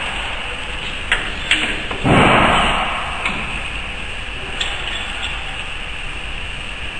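Metal parts of a rotary tablet press clinking as its tooling is fitted by hand: a few light clicks, then a louder metallic clank about two seconds in that rings briefly, and a few fainter ticks after it.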